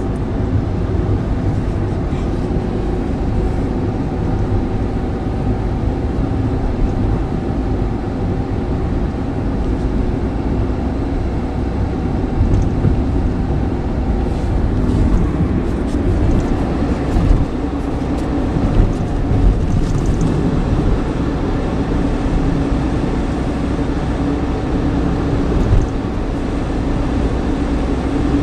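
Steady engine and road rumble of a car driving along, heard from inside the cabin.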